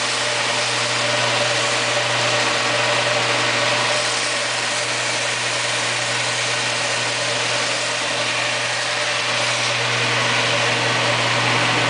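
Power-feed thickness sander running steadily: a constant hum under an even hiss.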